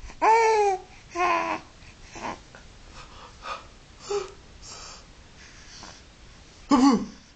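Baby vocalizing: two short high squeals in the first second and a half, soft breathy sounds through the middle, and another sharp squeal near the end.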